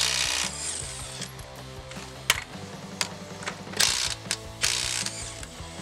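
Cordless impact wrench spinning lug nuts off a truck wheel in short bursts of hammering: one right at the start and two close together near the end, with a few sharp clicks in between.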